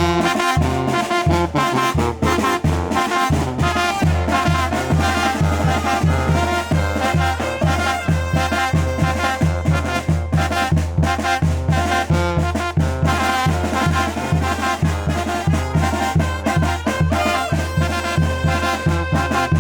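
Mexican banda (wind and brass band) playing a chilena: trumpets and trombones carry the melody over a steady, bouncing bass line.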